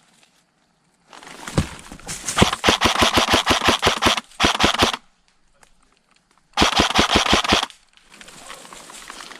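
Airsoft guns firing full-auto bursts of rapid shots, about a dozen a second. First a long burst of about two seconds, then a short one, then another of about a second.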